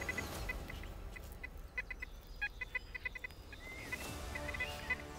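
Short electronic beeps from a metal detector, all at one high pitch, coming in quick irregular clusters as it signals a metal target close by.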